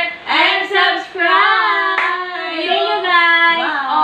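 High female voices singing a tune with long held notes, and one sharp click about two seconds in.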